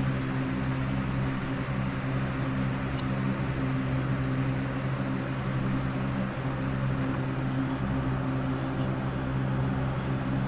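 Wood lathe running steadily: an even motor hum over a constant hiss.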